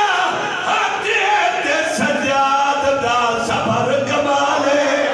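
A man's voice singing a mournful lament in a chanted, melodic style into a microphone, with long held and wavering notes.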